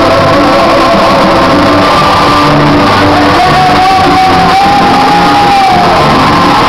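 Live band and singer playing loud in an arena, heard from the audience seats. A long held note comes in a few seconds in and slides down near the end, with crowd shouting mixed in.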